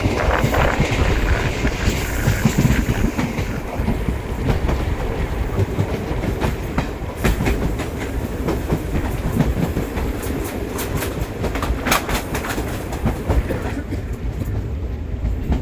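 Coaches of the Kosi Super Express rushing past close alongside on the adjacent track, heard from the open doorway of another moving passenger train. A steady rolling rumble with a run of sharp wheel clatter over rail joints, thickest in the middle.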